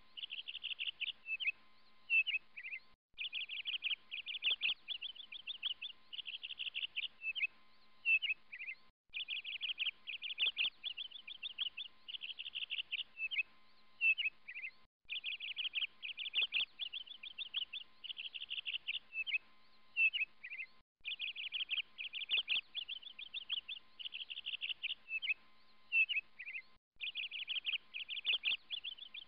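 A looped recording of a songbird's rapid trills and chirps. The same phrase of about six seconds repeats over and over, with a brief cut to silence between repeats.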